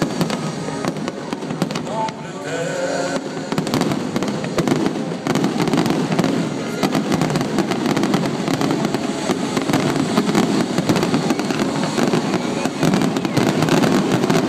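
Fireworks going off in a dense, continuous run of bangs and crackles, growing a little louder towards the end.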